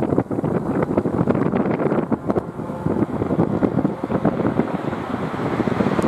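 Wind buffeting the microphone: a loud, gusty rumble that flutters and surges unevenly.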